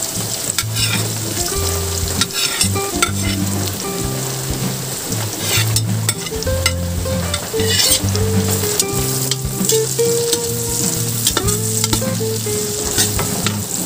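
Carrot sticks sizzling in hot margarine with sautéed onion and garlic in a metal pan, with sharp clicks and scrapes of a utensil stirring them. Low held notes that change pitch run underneath.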